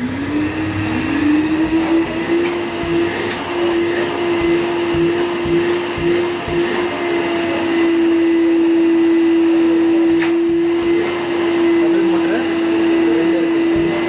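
Stainless-steel wet-and-dry drum vacuum cleaner switched on: its motor spins up with a rising whine over the first second or so, then runs steadily with a loud rush of air. A few short knocks sound over it.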